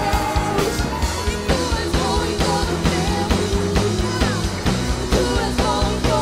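Live worship band playing a praise song: a drum kit keeps a steady beat under guitars and keyboard while several singers sing into microphones.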